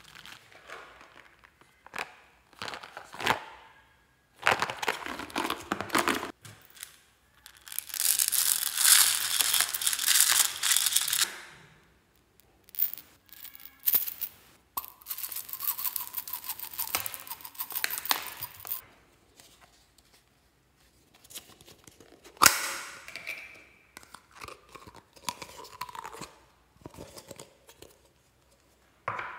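Slime being worked and mixed by hand with small add-ins: irregular bursts of crackly, clicking noise with short pauses between them, the longest and loudest stretch about eight to eleven seconds in.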